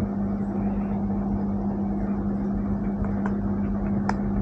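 A steady low hum over a background hiss, with a few light clicks and taps from a cardboard smartwatch box being handled and pried open about three and four seconds in.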